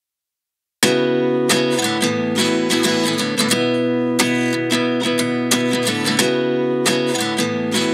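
Background music: a strummed acoustic guitar that starts abruptly about a second in, after a moment of dead silence.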